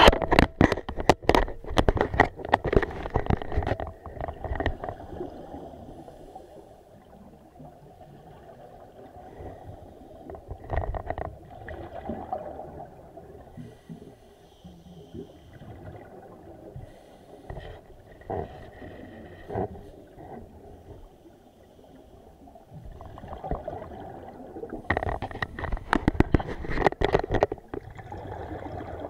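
Scuba divers' exhaled air bubbling out of their regulators, heard underwater through the camera housing: dense crackling bubble bursts for the first few seconds and again near the end, with quieter, scattered gurgling between.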